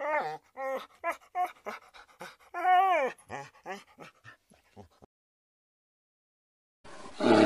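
A dog whimpering and yelping: a quick run of short, high whines, with one longer whine falling in pitch about three seconds in, dying away after about five seconds. Near the end a short, harsh growl from a brown bear breaks in.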